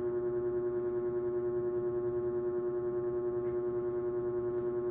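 A steady droning hum held on one pitch, with a slight, even pulse in its loudness.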